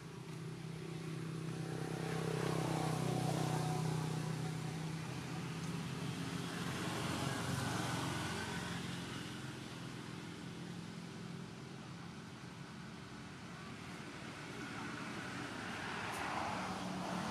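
Motor vehicle engines passing on a road, a steady low hum that swells and fades a few times.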